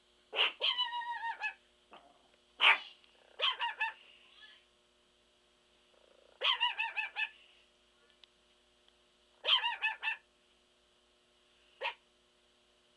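Chihuahua barking: about six bursts of high-pitched yapping, most of them several quick barks in a row, with short quiet pauses between them.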